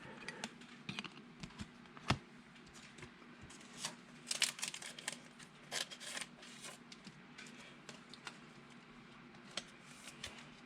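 Trading cards being handled and sorted by hand: scattered soft clicks, rustles and plastic crinkling, busiest about four to five seconds in, over a faint steady hum.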